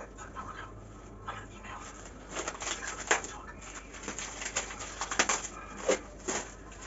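A series of sharp clicks and knocks with light rustling, like grocery packaging being handled and set down, starting a couple of seconds in.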